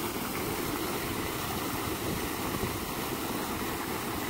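Pumped water pouring steadily from a large discharge pipe and churning the pond surface below: an even, unbroken rushing.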